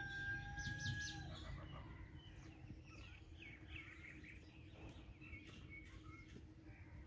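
A rooster's crow holding one steady note, ending about a second in, followed by faint, scattered chirping of small birds.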